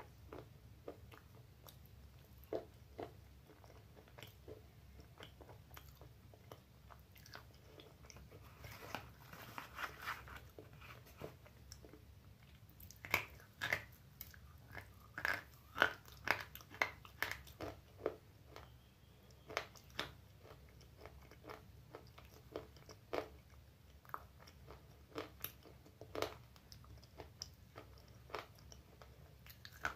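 Close-up crunching and chewing of baked clay pieces in the mouth: irregular sharp cracks, most frequent and loudest around the middle.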